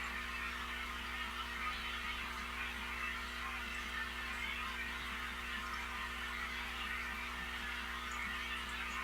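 Aquarium pump equipment running: a steady electrical hum under an even hiss that does not change.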